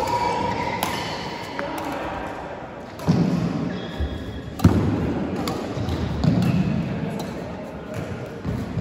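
Badminton rally: a run of sharp racket hits and thuds of players' feet on the court, the loudest about three seconds in and again a second and a half later.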